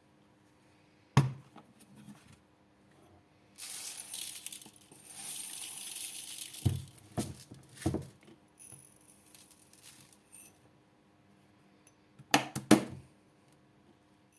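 Glassware and dishes knocked and clinked on a kitchen counter: a sharp knock about a second in, three more around halfway, and a quick cluster near the end, with a few seconds of hissing, pouring-like noise in between.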